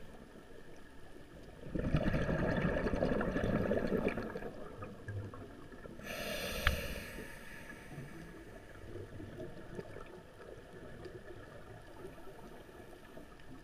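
A scuba diver breathing through a regulator underwater: a rush of exhaled bubbles about two seconds in that lasts about two seconds, then a hissing inhale about six seconds in.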